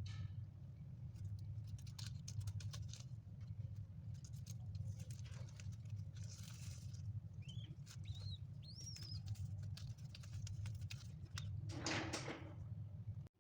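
Baby dove pecking at rice grains: quick, irregular clicking taps of its beak, with three short high peeps partway through and a brief rustle near the end.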